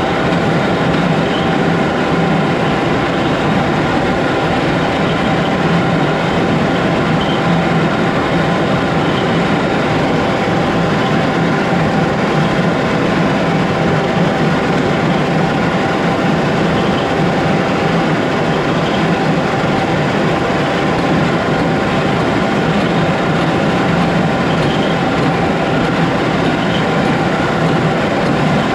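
John Deere 4055 tractor's diesel engine running steadily under load, driving a New Holland BC5070 small square baler while it bales hay.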